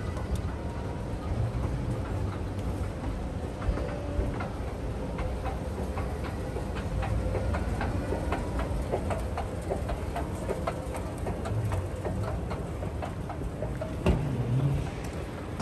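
Ambience of a large railway station hall: a steady low rumble of the hall and escalator, with a run of clicking footsteps on the hard floor in the middle and a brief louder sound near the end.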